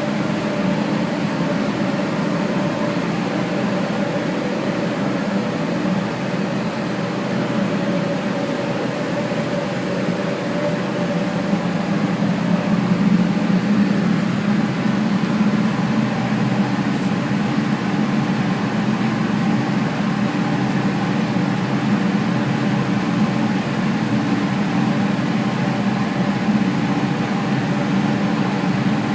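Steam boiler plant running: a steady rushing noise with a low hum underneath, unchanging throughout.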